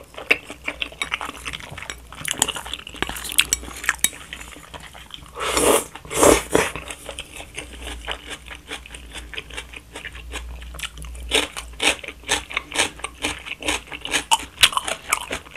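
A person eating spicy seafood noodles with chopsticks: chewing and mouth smacks throughout, two longer noisy slurps about five and a half and six and a half seconds in, and a quicker run of clicks and smacks near the end, with chopsticks knocking on the plate.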